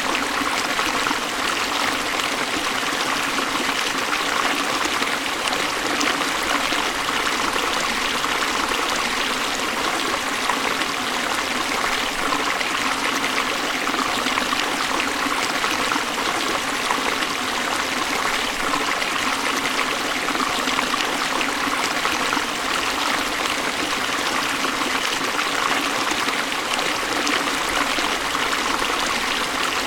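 River water rushing steadily over falls, an even, unbroken splashing roar.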